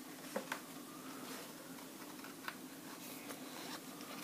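Faint handling of planner pages and sticker sheets: a few light ticks and taps scattered through, over a steady low hum.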